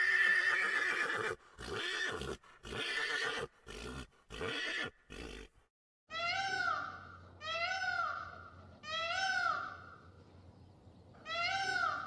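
Horse whinnying: one long call, then a run of five short pulses, stopping about halfway through. Then comes a series of similar pitched animal calls, each rising and falling, about one every 1.3 seconds.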